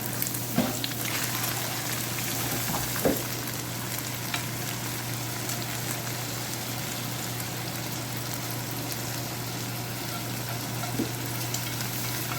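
Egg noodles frying in hot oil in a pan with garlic and green onion, a steady sizzle, with a few light knocks scattered through it.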